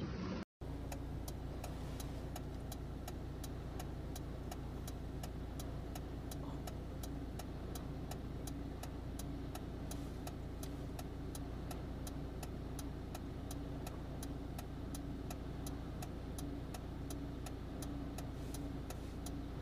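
A car engine idling with a steady low hum, and the indicator relay ticking evenly, about three ticks a second.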